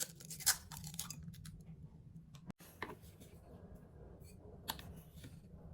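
Kitchen prep handling noises: light scraping and rustling with a few sharp clicks of utensils or packaging over a low hum.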